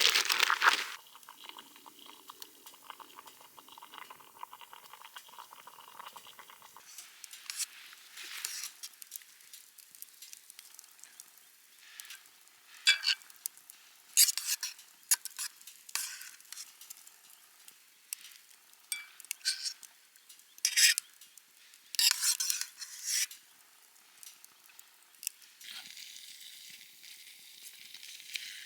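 Food sizzling in a frying pan, with a utensil scraping and tapping against the pan in short, irregular strokes. Near the end a louder, steady sizzle starts.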